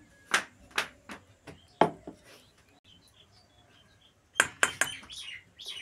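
Hard utensils clinking and knocking against a stainless steel bowl while rice-flour batter is poured and scraped into it from the mixer jar. There are about four sharp clinks in the first two seconds, then a quick run of clinks a little over four seconds in.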